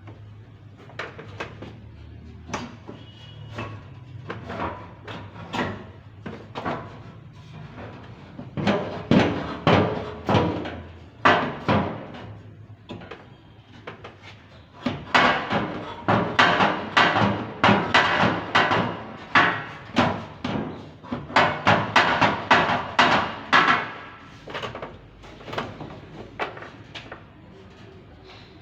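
Repeated sharp knocks and rattles, a few scattered at first, then fast runs of several strikes a second through the middle, easing off near the end.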